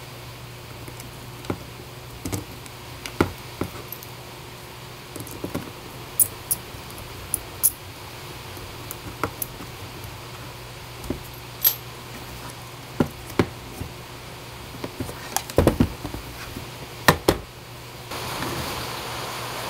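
Scattered small clicks and taps of a precision screwdriver and 3D-printed plastic chassis parts being handled and fitted, a few in quick clusters, over a low steady hum.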